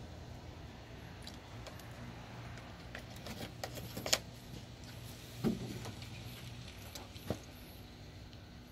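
Sharp plastic clicks and a knock as the coolant jug and the expansion tank cap are handled. The loudest click comes about four seconds in, the knock a second later and a last click near the end, over a steady low hum.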